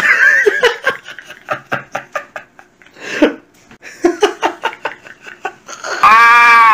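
A person laughing in short, rapid bursts, then a loud drawn-out vocal cry near the end.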